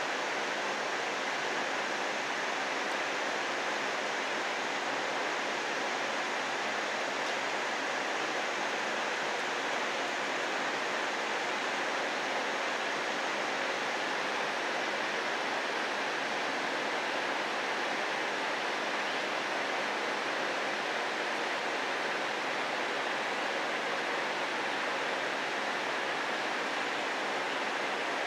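Steady rain falling, an even hiss that holds at one level without breaks.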